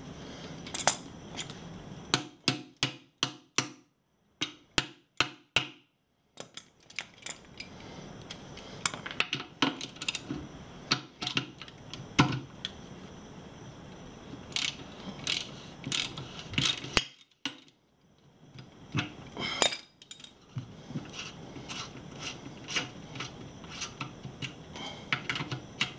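Socket ratchet wrench clicking in runs of sharp ticks, at about three a second in places, as it turns the nut holding a tire-pressure (TPMS) sensor's valve stem to the wheel rim.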